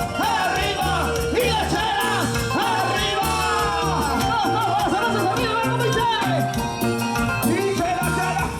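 Live Latin American band music: a repeating bass line under a bending, wavering melodic lead.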